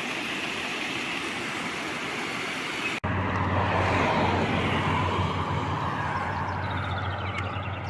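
Water rushing through a channel as an even hiss. About three seconds in it cuts off abruptly and a steady low hum takes over, with a whoosh that swells and then fades.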